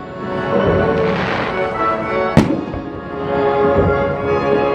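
Fireworks over music: a fizzing crackle of bursting shells a second or so in, then one sharp firework bang about halfway through.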